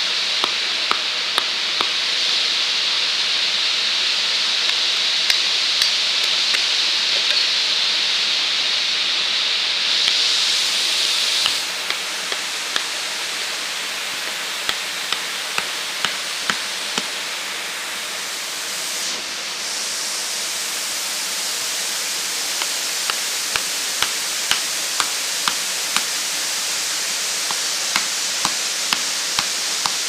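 A blade chopping bamboo into small kindling pieces, in short runs of sharp strikes about two a second, over the steady rush of a rocky stream and small waterfall.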